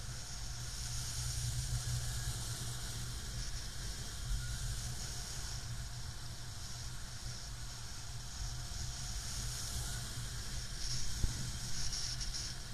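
Air rushing over the camera microphone of a paraglider pilot in flight: a steady hiss over a low rumble, with one brief bump a little before the end.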